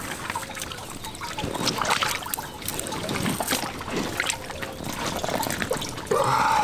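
Water trickling and dribbling with small irregular splashes, with a brief louder sound about six seconds in.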